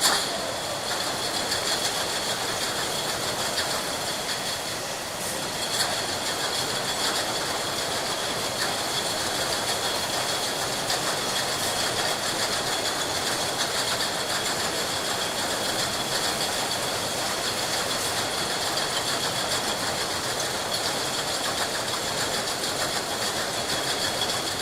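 Glass bottles clinking and rattling against one another on a factory bottling line: a dense, continuous clatter with a steady high machine whine under it.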